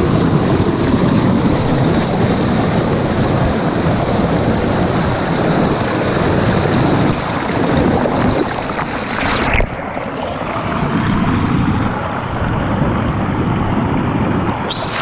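Rushing water of a fast mountain river, a steady loud roar, changing abruptly about halfway through.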